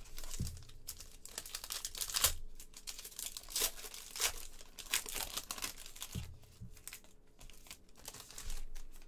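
Foil wrapper of a trading-card pack being torn open and crinkled by hand: an irregular run of crackles and rustles.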